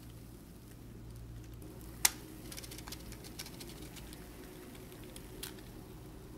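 Thick sponge-cake batter pouring in a stream into a paper-lined metal cake mould, with soft wet patters and small ticks over a steady low hum. A single sharp click comes about two seconds in.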